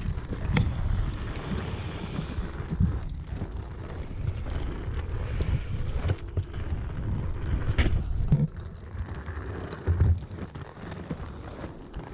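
Inline skate wheels rolling steadily over pavement, a low rumble, with wind buffeting the microphone and a few sharp clicks and knocks along the way.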